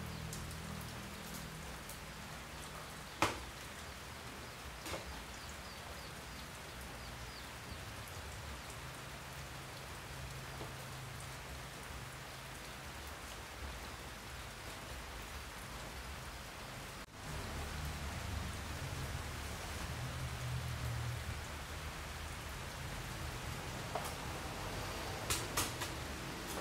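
A steady, rain-like hiss, with faint low tones underneath. There is a sharp click about three seconds in and a few lighter knocks near the end.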